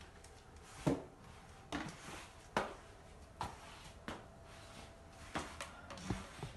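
Slow shuffling footsteps with the light knocks of a walker frame on a wooden floor, a sharp clack roughly once a second.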